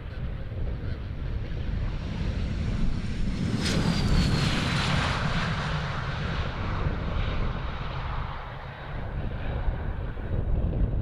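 Northrop F-5 fighter jet's twin turbojets going past: the noise swells to a peak about four seconds in, where a high whine slides down in pitch as the jet passes, then eases off.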